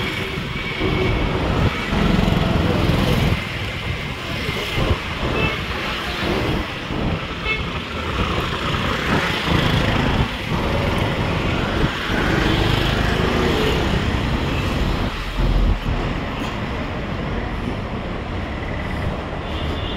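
City road traffic: auto-rickshaws and motorbikes running past, with a few short horn toots.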